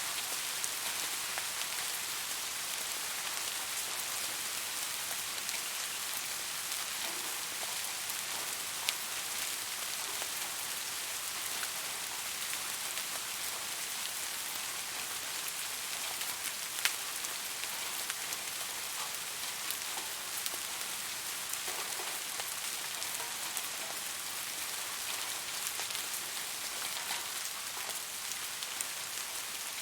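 Steady rain falling, a constant hiss with many individual drops ticking on a hard surface.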